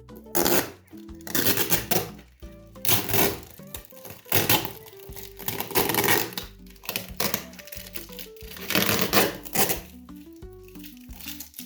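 Background music with a slow stepping melody, overlaid by about six separate bursts of crinkling and rustling, each lasting under a second.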